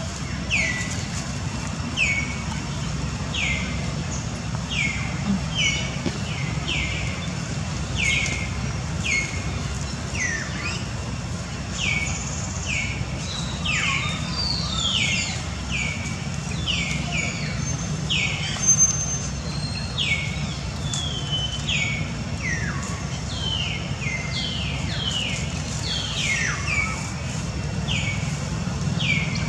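Repeated short high-pitched animal calls, each sliding down in pitch, about one or two a second and sometimes overlapping, over a steady low hum.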